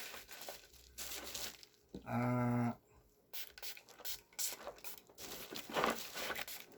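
Plastic parcel packaging being torn open and crinkled by hand in irregular rustling bursts, with a short hummed voice sound about two seconds in.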